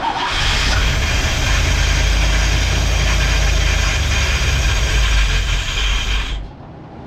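Ford 302 small-block V8 fires and runs loudly for about six seconds, then drops away sharply near the end. The owner feels it is running rough and suspects the ignition timing needs resetting.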